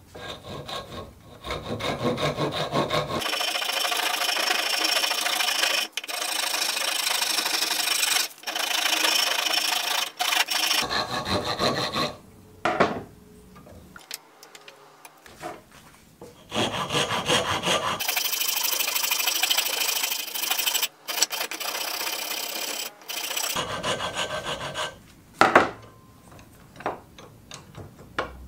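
A rasp filing a block of wood clamped in a vise, with fast back-and-forth scraping strokes in two long runs of several seconds each, plus a few shorter bursts with brief pauses between.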